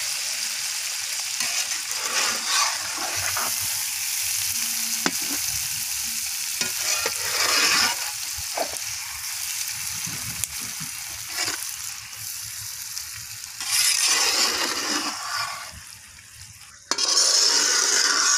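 Oil sizzling steadily under boiled eggs and onion-pepper masala in a large kadai, as a long metal spatula stirs and scrapes the pan in repeated strokes. The stirring grows louder in a few stretches. It is the last frying of the dish before it is done.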